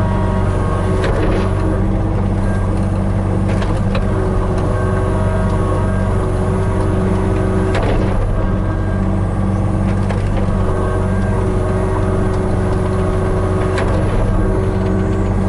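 Hitachi 35U mini excavator's diesel engine running steadily, with sharp cracks and crunches of limestone rock every second or two as the machine works the stone.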